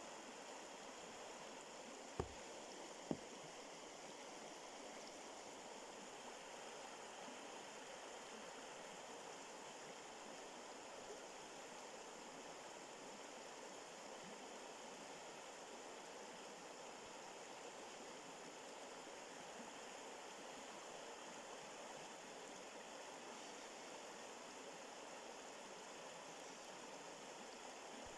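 Faint, steady rush of flowing water, like a stream, with two brief thumps a little after two and three seconds in.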